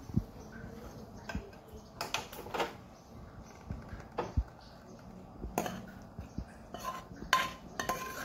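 A steel spoon scraping and knocking against a steel kadhai as the thick kalakand mixture is emptied out into a steel plate: scattered metal clinks and scrapes.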